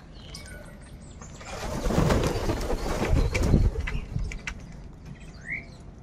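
Several house crows take off together with a loud flurry of wing flapping, starting about a second and a half in and lasting about two and a half seconds. A short rising bird call follows near the end.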